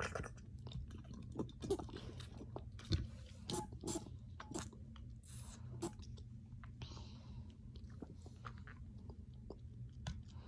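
A person drinking cold water through the spout of a plastic water bottle: a run of wet mouth clicks, sips and swallows, with a few longer hissy sucks in the second half.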